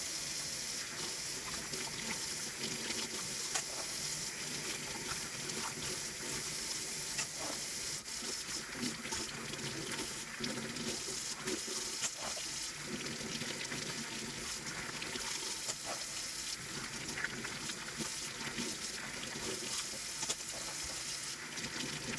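Tap water running steadily into a sink while plastic keyboard keycaps are rinsed under it, with small clicks and clatters of the keycaps.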